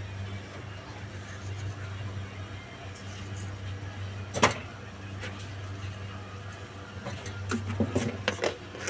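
Tea with cardamom boiling in a pan on a gas stove, over a steady low hum. There is a sharp click about four and a half seconds in, then a quick run of clicks and knocks near the end.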